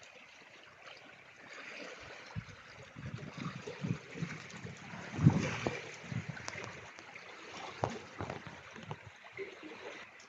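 Wind gusting on the microphone: an irregular rushing with low buffeting thumps that swell and fade, loudest about five seconds in.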